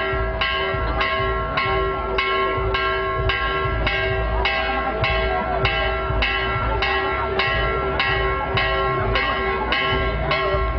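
Church bell rung in a fast, steady series of strokes, a little under two a second, each stroke's ringing carrying on into the next.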